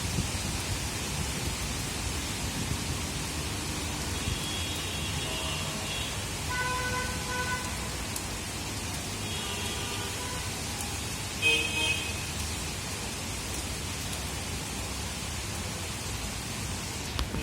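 Steady rain, an even hiss throughout, with a few short faint pitched tones breaking through now and then; the clearest comes about two-thirds of the way in.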